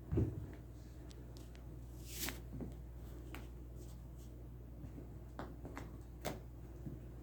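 Two house cats wrestling: a heavy thump just after the start, then scattered light knocks, scuffles and clicks of bodies and paws on the floor. A steady low hum runs underneath.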